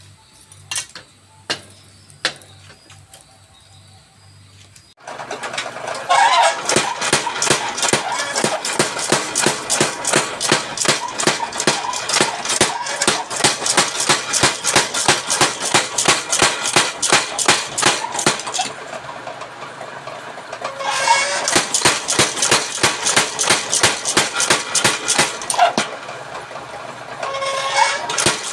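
Mechanical power hammer pounding a red-hot leaf-spring steel spear blank, starting about five seconds in, with several rapid blows a second and two short easings. Before it starts, a few light metal clinks sound over a low hum.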